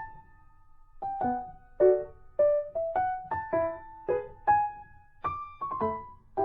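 A simple keyboard melody of single struck notes that die away, about two a second, after a short pause at the start.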